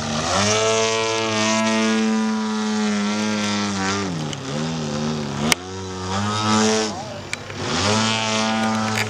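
Radio-control aerobatic model plane's motor and propeller buzzing at high revs, its pitch dipping and rising twice with throttle changes. A sharp click sounds about halfway through.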